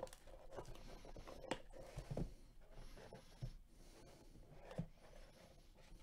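Gloved hands handling a cardboard trading-card box: faint rubbing and rustling of the cardboard, with a few light taps and knocks as the box is turned and set down.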